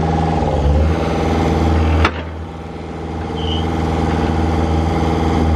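John Deere compact excavator's diesel engine running steadily while the machine is worked. About two seconds in there is a single sharp clack, after which the engine sound dips and gradually swells back.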